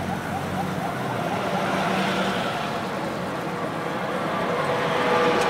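Busy street traffic noise: a steady wash of passing vehicles, with a quick run of short chirps about half a second in and a held horn-like tone near the end.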